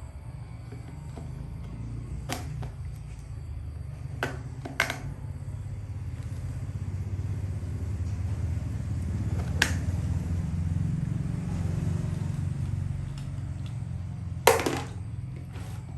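Steady low motor-like rumble that swells gradually and eases off near the end, with a few sharp knocks, the loudest near the end.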